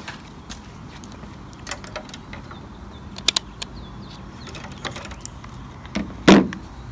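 Handheld digital multimeter's rotary selector dial being turned, clicking through its detents, with handling clicks from the meter and its test leads. A louder thump comes about six seconds in.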